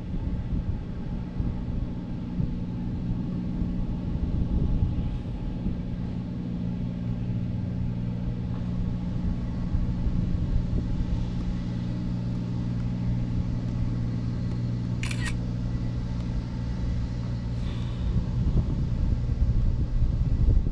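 Wind buffeting the microphone as a low rumble, with a steady low hum under it and a single sharp click about 15 seconds in.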